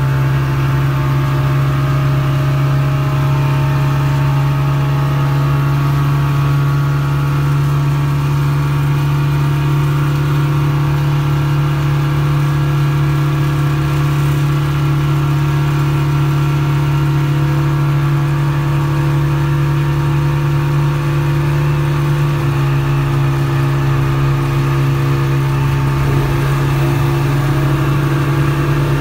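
Outboard motors on a speedboat, 40 hp Yamahas among them, running together at a steady high cruising speed, with the rushing wash of the wake underneath. The engine note holds steady and wavers slightly near the end.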